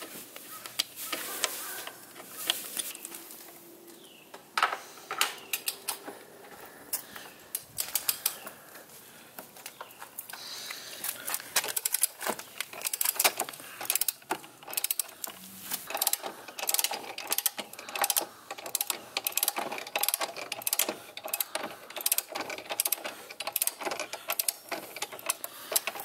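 Ratcheting wrench clicking as it is swung back and forth to unscrew a motorcycle's front axle, in quick regular runs of sharp clicks from about ten seconds in; before that, scattered metal clicks and taps of hand work at the front brake caliper.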